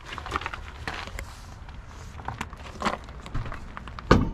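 A spare tire being handled and set down under a jacked-up trailer as a safety: scattered knocks and scuffs, then one loud thump about four seconds in.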